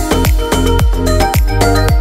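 Background electronic dance music with a steady kick-drum beat, about three beats a second, under held synth tones.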